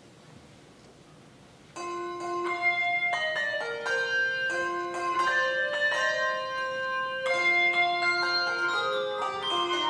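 Handbell choir starting a piece about two seconds in, ringing overlapping chords of sustained bell tones in a lively, shifting pattern, after a moment of quiet.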